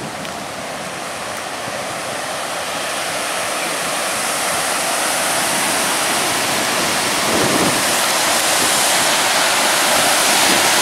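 Water rushing over a dam's concrete spillway in a steady roar, growing steadily louder as it comes closer.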